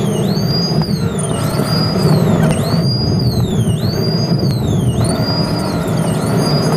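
Police car siren wailing in a quick rising-and-falling cycle, about once a second, over the pursuing car's engine and road rumble.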